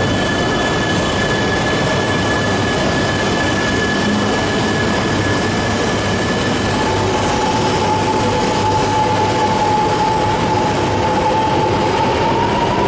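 Shinkansen train, an E2 series coupled with an E3 series, moving along the platform with a steady wheel-and-running rumble and a high motor whine. About seven seconds in, a lower whine sets in and slowly rises in pitch as the train picks up speed.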